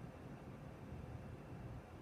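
Hampton Bay Minuet II ceiling fan running on medium speed: a faint, steady low rumble of the motor and moving air, with a light hum.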